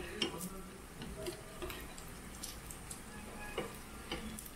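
Metal tongs and scissors clicking against each other and the grill plate as pieces of grilled pork belly are turned and cut: scattered light, irregular metallic clicks.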